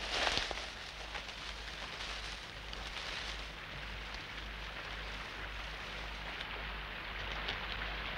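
Steady rain falling, as a soundtrack effect, with a louder rush of rain in the first half second.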